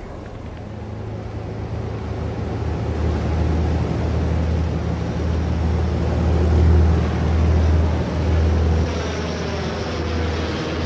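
A propeller fighter plane's piston engine droning steadily in flight, swelling louder toward the middle and easing off near the end.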